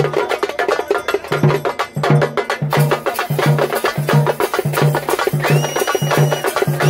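Procession drums beaten with sticks in a fast traditional rhythm: dense, rapid sharp strokes over a low pitched beat that pulses about three times a second. The low beat drops out for about a second near the start, and a high whistle-like tone sounds for about a second near the end.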